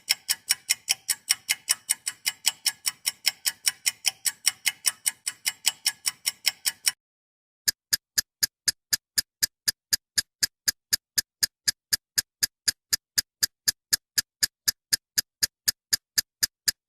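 Ticking sound effect of a clock or timer: fast, even ticks at about four a second. About seven seconds in it stops briefly and gives way to a thinner, sharper, slightly ringing click at the same pace.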